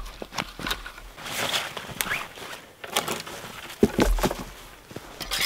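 Footsteps in snow and brush, with scattered irregular clicks and knocks.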